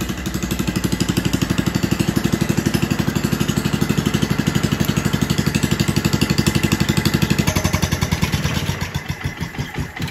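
Kohler K301 single-cylinder engine running at a steady speed, then switched off about seven and a half seconds in. Its firing beats slow and space out as it coasts to a stop.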